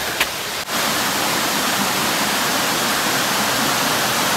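Waterfall rushing: a steady, even wash of falling water, louder from a cut just under a second in.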